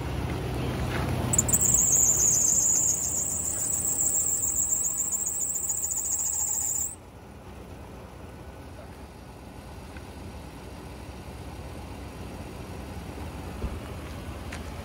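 A loud, high-pitched squeal from the open engine bay of a Nissan Patrol, lasting about five seconds and cutting off suddenly. Before it, a low engine hum is heard.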